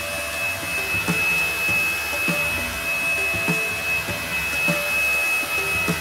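Grundig VCP 8930 HighForce cordless stick vacuum running with its mini turbo brush on sofa fabric: a steady, high-pitched motor whine over rushing airflow.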